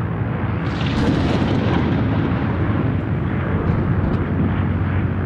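Airliner flight-deck noise in flight: a steady rushing of airflow with a low hum beneath it. About a second in, a sharper hiss swells for about a second, then settles back.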